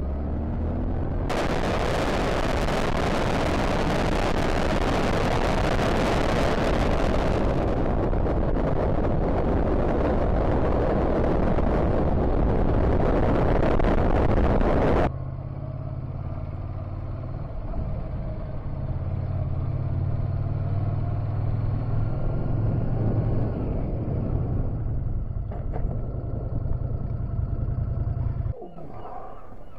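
Loud wind noise on a helmet-mounted action camera's microphone at road speed, drowning out the motorcycle. About halfway through it cuts off abruptly to slower riding: the motorcycle engine's steady low hum under lighter wind, which drops away again near the end.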